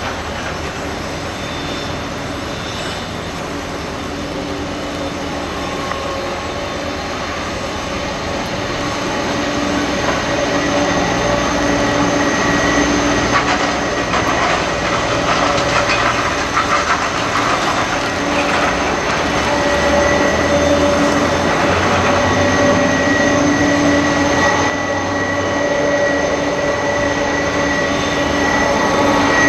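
Boeing 747-400's four jet engines at taxi power: a steady rumble with a high whine, growing louder about ten seconds in as the jumbo jet turns and rolls past broadside.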